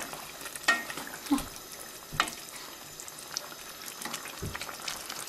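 Wooden spoon stirring chunks of vegetable stew in a stainless steel pot, with a few scattered knocks and scrapes against the pot over a faint steady frying hiss from the pot on the stove.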